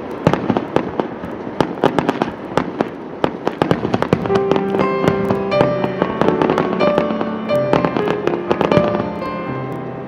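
Fireworks going off in rapid, dense cracks and pops. Music with held notes joins underneath about four seconds in.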